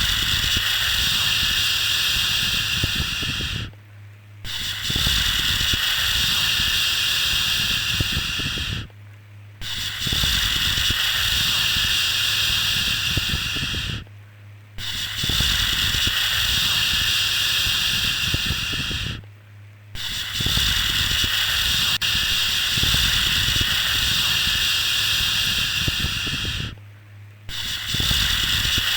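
Long, steady 'shhh' shushing for soothing a baby, held for about four to six seconds at a time with a brief pause between each, about six times over.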